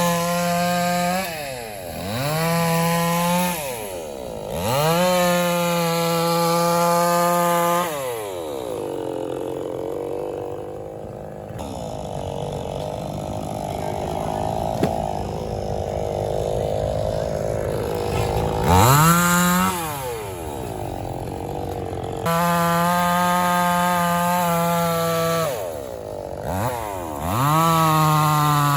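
A chainsaw cutting neem wood, its engine repeatedly revved up to a steady high whine for a few seconds at a time, then dropping back. About a third of the way in there is a longer, lower, rougher stretch before it revs up again.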